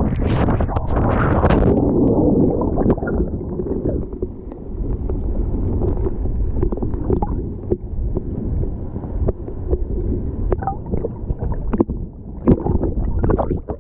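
Water heard through a GoPro knocked off a kitesurfer and tumbling underwater. A loud splashing rush in the first two seconds gives way to muffled low churning and gurgling, with scattered clicks and knocks of the camera housing.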